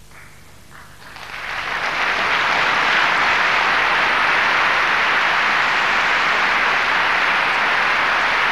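Opera audience applauding at the end of an act. A few scattered claps swell within a second or two into full, steady applause.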